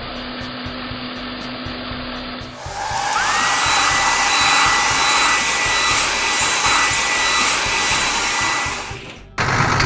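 Cartoon car-wash machine sound effect. A low steady hum gives way about two and a half seconds in to a louder blower-like hiss, with a whine that glides up and then holds one pitch. It cuts off abruptly near the end.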